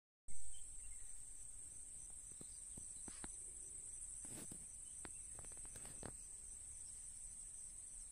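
Steady high-pitched insect chorus, with a few faint scattered clicks.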